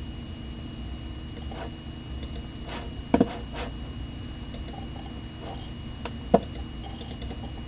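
Mac Pro computer running with a steady low hum and a faint high whine, while several short clicks sound, the loudest about three seconds in and again about six seconds in.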